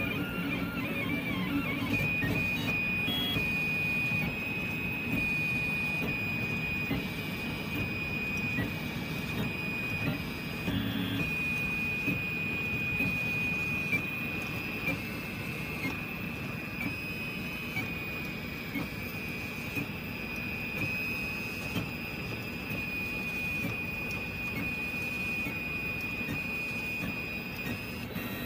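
Rhino V0.2 3D printer running a print: a steady high whine from its motors that shifts pitch in small steps as the moves change, over an even hiss.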